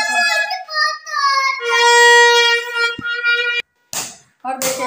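Reedy wind-instrument tones: a few sliding notes, then one held note that cuts off suddenly a little over three and a half seconds in, followed near the end by short breathy blasts.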